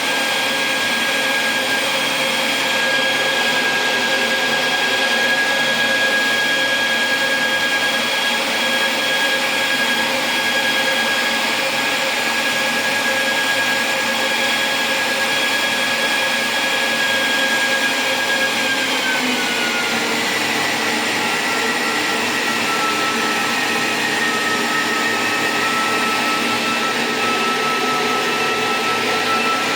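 Cooling fan running steadily with a whirring rush and a high whine; about 19 s in, the whine slides down to a lower steady pitch as the fan slows.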